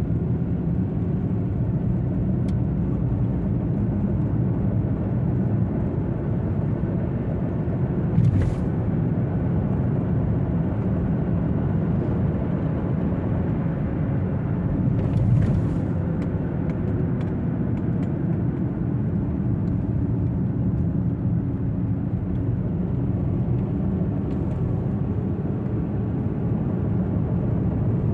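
Car engine idling steadily, with two brief louder noisy bursts about eight and fifteen seconds in. The engine is being demonstrated for a knock that appears when the accelerator is pressed.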